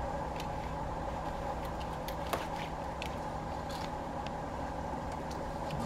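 Hand pruning shears cutting a plum branch: one sharp snip about two seconds in, with lighter clicks and twig rustles around it, over a steady background hum.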